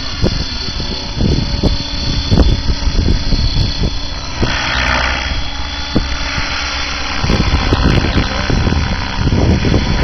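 Align T-Rex 700E electric RC helicopter flying aerobatics overhead: its rotor blades whooshing and its electric motor giving a steady high whine. The blade noise swells for about a second midway through as it manoeuvres.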